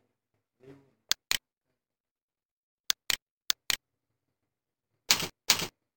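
Computer keys and clicks: six sharp single clicks, mostly in pairs about a quarter second apart, then from about five seconds in louder, heavier keystrokes as a filename is typed on the keyboard.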